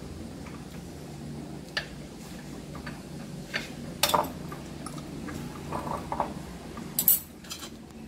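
Scattered clinks and taps of a metal fork against a small ceramic dish, a few sharp ones, loudest about four seconds in and again about seven seconds in.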